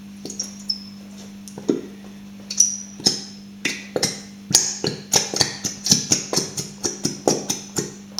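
Upturned glue bottle being tapped and shaken to get the last of the glue out: sharp taps, sparse at first, then about three a second in the second half, over a steady low hum.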